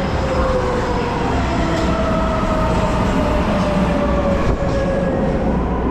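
MARTA Breda CQ312 rapid-transit car running on the rails: a steady rumble with a faint motor whine that slowly falls in pitch.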